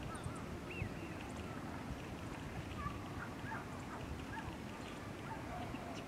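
Scattered short bird calls, brief chirps and whistles heard here and there, over a low steady rumble.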